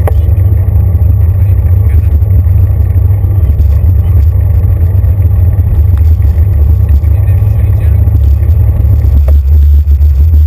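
Bicycle rolling noise and road vibration carried through a handlebar-mounted camera: a loud, steady low rumble. A click a little after nine seconds in, where the rumble changes tone.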